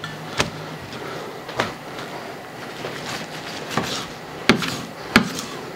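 A few sharp, scattered knocks and taps on a wooden cutting board as a piece of raw lamb is set down and cut with a kitchen knife.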